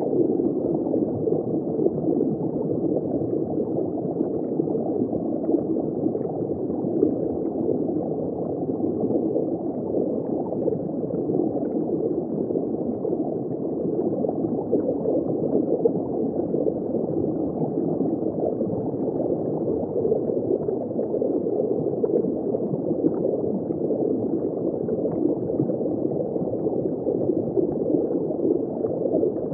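Steady gurgling and bubbling of water circulating in a saltwater reef aquarium, dull and muffled with no high sound.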